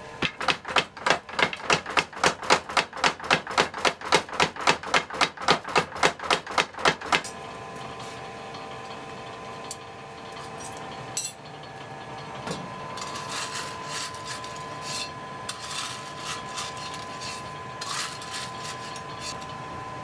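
Mechanical power hammer striking red-hot steel at an even rate of about four blows a second, stopping after about seven seconds. Afterwards a steady machine hum with scattered metal clinks and rattles as tongs work in the coke forge fire.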